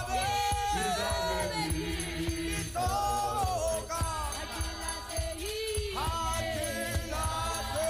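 Church gospel choir singing with a lead voice, backed by a drum, hand claps and jingling hand percussion.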